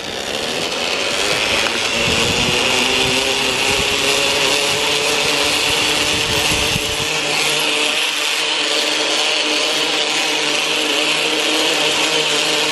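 Zipline trolley pulleys running along the steel cable: a loud, steady whir with a hissing edge that builds over the first couple of seconds, then holds at speed.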